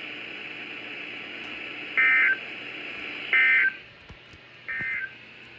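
NOAA Weather Radio end-of-message data bursts: three short, shrill digital squawks, each about a third of a second long and about a second and a half apart, signalling the end of the warning broadcast. They are heard through a radio receiver's speaker over a faint steady hiss.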